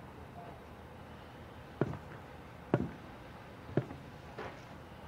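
Slow footsteps of hard-soled dress shoes on a hard floor: three distinct steps about a second apart.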